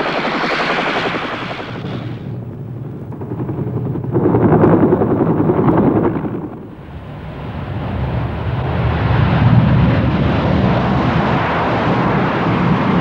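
Military helicopters' rotors and engines, a rough, loud din that swells and fades, dipping about two seconds in and again near seven seconds before building toward the end.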